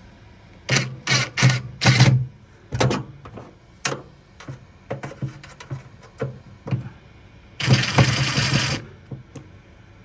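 Screws being worked out of a heat pump water heater's metal top cover: a run of short clicks and rattles at uneven intervals, then a steadier noise lasting about a second near the end.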